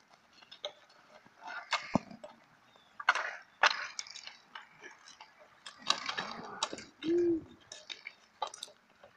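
Road hockey sticks clacking on asphalt and slapping a ball, in scattered sharp knocks with quiet gaps between, and a brief shout about seven seconds in.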